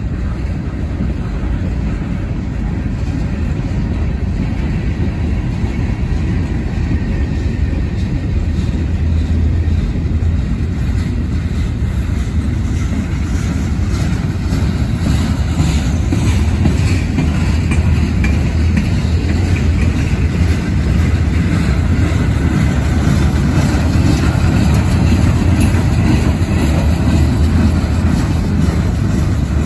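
Norfolk Southern freight train's cars rolling past on the track: a steady low rumble of steel wheels on rail that grows somewhat louder after the first several seconds.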